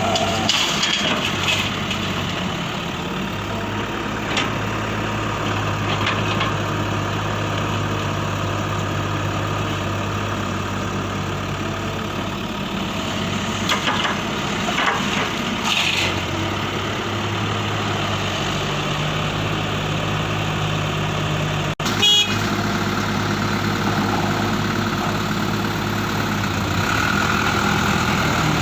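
Huina RC excavator's electric motors whirring steadily, with scattered short knocks and clicks from the machine at work. The sound drops out briefly about two-thirds of the way through.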